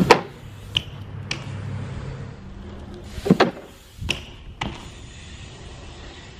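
BMX bike hitting a wooden plank jump and landing on asphalt: a series of sharp knocks and clatters. The loudest is right at the start, with a double knock about three seconds in.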